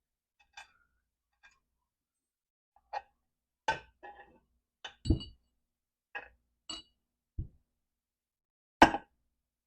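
Metal parts and tools clinking and knocking, about ten separate short taps and clanks, some with a dull thud; the loudest is a sharp clank near the end.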